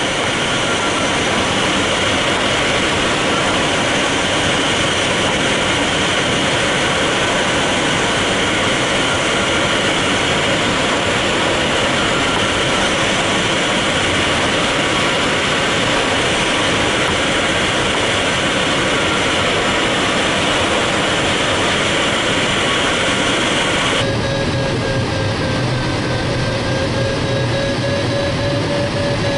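Steady rush of airflow around a glider in flight, heard from the cockpit, with a faint tone wavering in pitch beneath it. About 24 seconds in the sound changes abruptly to a thinner rush with a low hum and a clearer wavering tone.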